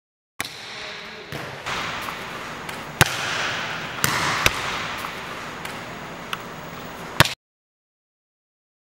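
Volleyball being passed off the forearms and bouncing, heard as several sharp smacks a second or more apart over the echoing hiss of a gymnasium. The loudest smack comes near the end, just before the sound cuts off.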